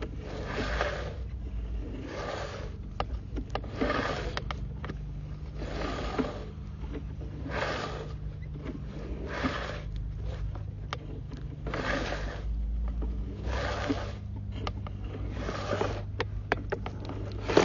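Sewer camera push-rod cable being pulled back out of the drain pipe hand over hand, a scraping swish with each pull about every one and a half to two seconds, with scattered clicks, over a steady low hum.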